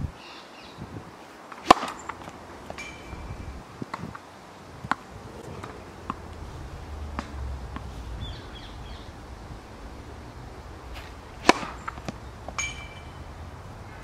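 Tennis ball struck hard by a racket on two serves about ten seconds apart, each a sharp pop, with a few lighter knocks between and after them.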